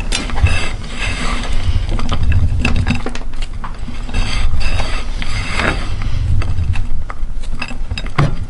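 Meat grinder running with a steady motor hum while chocolate bars are crunched through it, giving irregular clicks and crackles.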